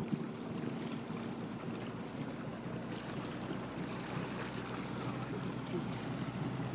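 Motorboat engine running steadily under way, towing a tube, a constant low hum under the rush of wake water and wind on the microphone.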